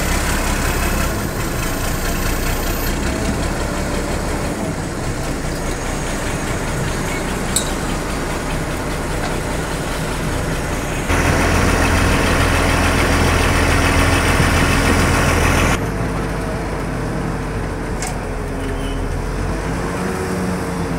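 A crane's engine running steadily. The sound jumps louder about eleven seconds in and drops back abruptly about five seconds later.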